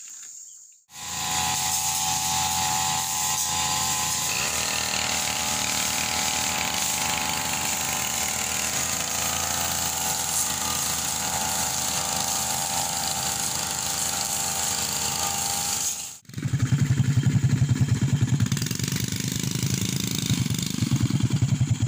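Brush cutter running steadily at high revs while clearing grass and undergrowth, a constant hissing whine. About three-quarters of the way through it cuts off, and motorcycle engines take over with a fast, even putter.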